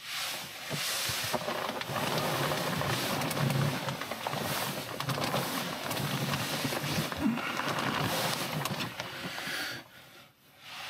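Rustling and crinkling of a synthetic sleeping bag as a person shifts, rolls over and sits up inside it, dying away abruptly about ten seconds in.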